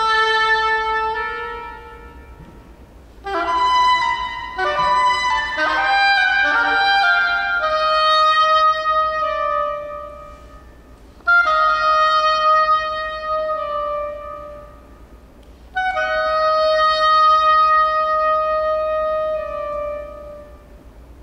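Solo oboe playing unaccompanied phrases. A quick run of notes comes about three seconds in, followed by long held notes, and the phrases are separated by short rests.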